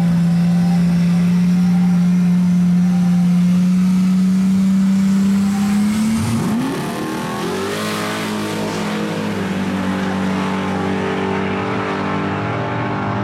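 Race car engine held at steady high revs, then about six seconds in its pitch falls sharply and a lower, steadier engine note carries on.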